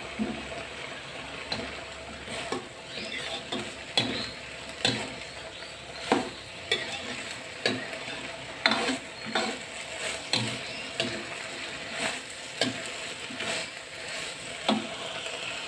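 Metal spatula scraping and knocking against a wok, every second or so, as choy sum stems, tofu puffs and meatballs are stir-fried, over a steady sizzle of frying.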